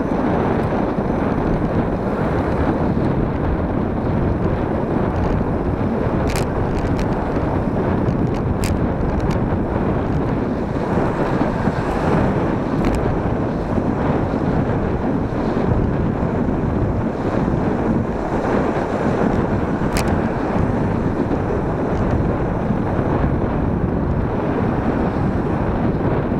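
Wind buffeting the microphone of a handlebar-mounted camera on a moving bicycle, a steady rushing noise, with a few brief sharp clicks.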